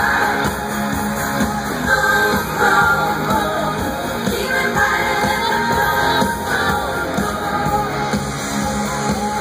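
Live pop concert music played loud over the venue's sound system, with a woman singing the melody over the band, heard from among the audience.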